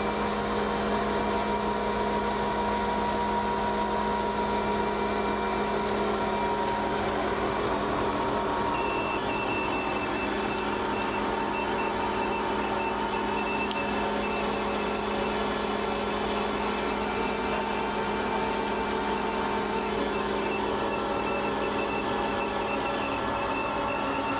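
Hensley Super Auger bulk feed trailer's hydraulically driven unloading auger running steadily during a timed unload: a constant machine hum with steady whining tones, and a higher whine that joins about nine seconds in.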